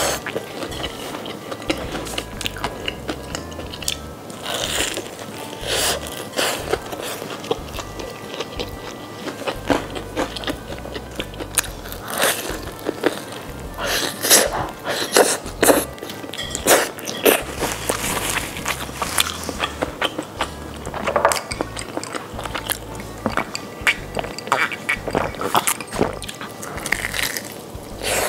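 Crunching bites and chewing of a crispy fried-chicken taco, whose shell is a breaded chicken fillet: clusters of sharp crunches, thickest midway, over background music.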